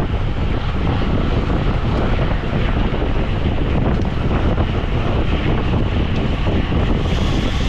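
Wind buffeting the microphone of a camera on a bicycle at race speed: a loud, steady rush, heaviest in the low end, turning a little brighter near the end.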